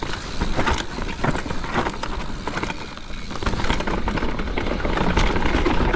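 Mountain bike riding fast down a dirt downhill trail: tyres rolling over the dirt with many quick rattles and knocks from the bike over a low rumble, getting louder in the second half.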